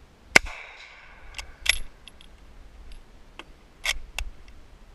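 Old bolt-action hunting rifle being handled: one sharp snap that rings briefly, then a series of metallic clicks and clacks as the bolt is worked.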